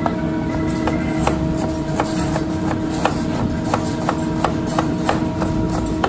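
Chef's knife chopping a red onion on a plastic cutting board: a steady run of knocks, about three a second, over a steady hum.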